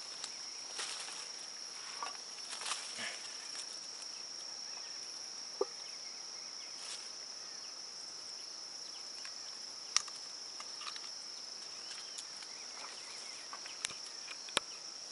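Steady high-pitched insect chorus, like crickets, from the marsh grass, with scattered faint rustling and a sharp click about ten seconds in.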